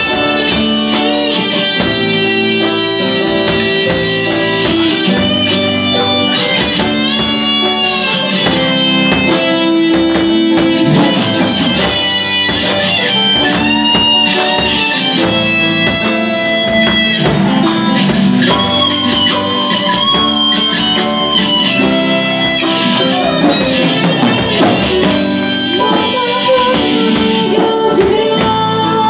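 A live rock band playing through amplifiers: electric guitars with a lead line of bending, sliding notes over a steady drum-kit beat.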